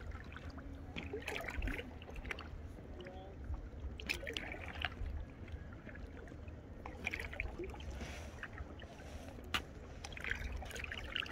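Kayak paddle strokes dipping and splashing in lake water, a splash roughly every three seconds, over a steady low rumble.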